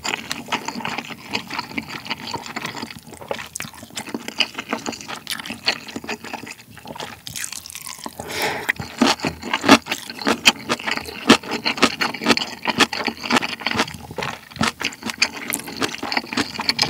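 Close-miked wet eating sounds of spicy instant ramen: chewing, mouth smacks and slurps of noodles and broth, as a steady run of small clicks with a longer slurp about eight seconds in.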